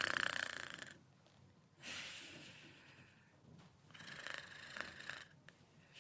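Snoring in sleep: three snores about two seconds apart, one at the start, one about two seconds in and one about four seconds in, each lasting roughly a second.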